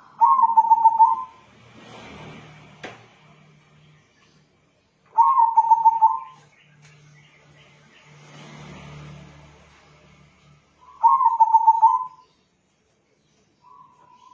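Zebra dove (perkutut), a local crossbred bird, cooing three times about six seconds apart. Each call is a quick stuttering run of notes lasting about a second.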